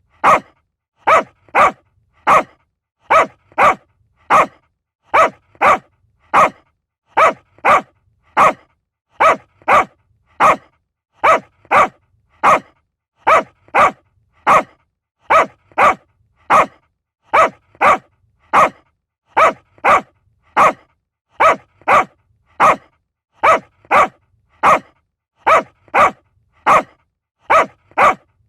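Small dog barking over and over: short, sharp barks, mostly in quick pairs, about two barks a second at an even pace, with clean silence between them.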